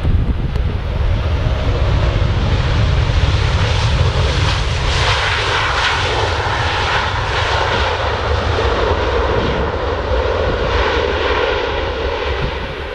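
Airliner passing close by, its engine noise swelling to a peak about five seconds in and then fading away.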